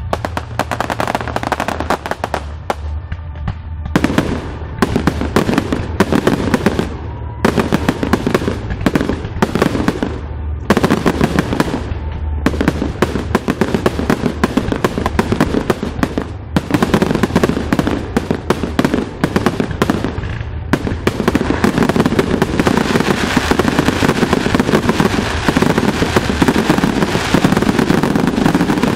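Aerial fireworks display: shells bursting in rapid clusters of bangs with short lulls between, turning into a dense, unbroken volley in the last third. Music plays underneath.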